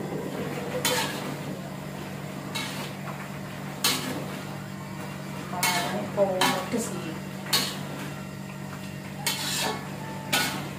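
Spatula scraping and knocking against a wok as food is stirred, in about eight separate strokes spaced a second or two apart.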